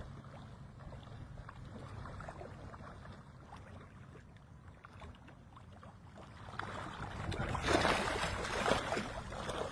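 Water splashing and sloshing, quiet at first, then louder and busier for the last few seconds.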